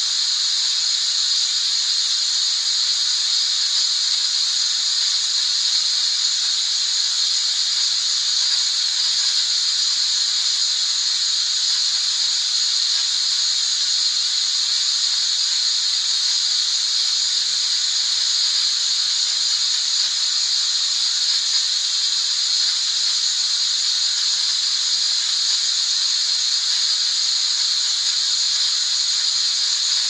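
Artificial white noise: a steady, unchanging high-pitched hiss with almost nothing in the low end.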